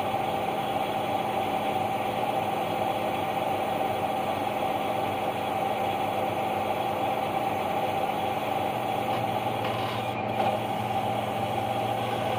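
Steady drone of farm machinery chopping corn: a forage harvester's and tractor's diesel engines running at a constant speed, with a steady high whine over the drone. There is one short knock about ten seconds in.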